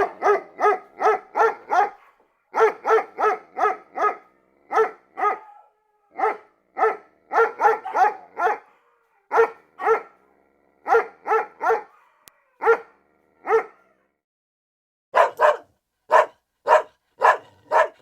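A dog barking repeatedly in quick runs of short barks, about three a second, with a short pause about fourteen seconds in before the barking resumes.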